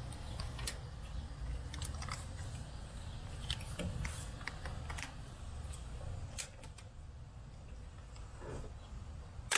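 Irregular small metallic clicks and taps of a hand tool working a spark plug loose, over a low rumble, with one sharp click at the very end.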